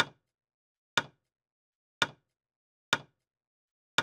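Countdown timer sound effect: a sharp tick about once a second, counting off the seconds.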